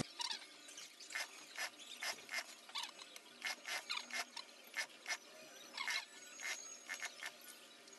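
Scattered light clicks and ticks from work at an industrial sewing machine as a jacket's folded edge is fed under the needle, irregular and sometimes in quick pairs. There is a faint, short high squeak about halfway through.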